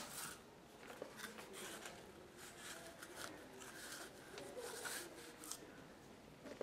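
Faint rustling and light scattered clicks as a large cardboard prop thermometer is handled against clothing.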